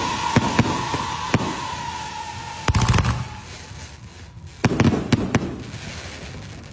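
Fireworks going off: a whistle slowly falls in pitch and fades over the first three seconds among scattered pops and bangs. Two rapid clusters of bangs follow, about three and five seconds in.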